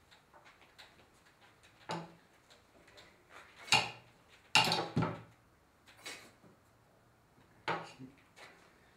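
A metal fork clattering and scraping against a plate, with knocks on a wooden table. There are a few sharp hits: one about two seconds in, the loudest cluster about halfway through, and another near the end.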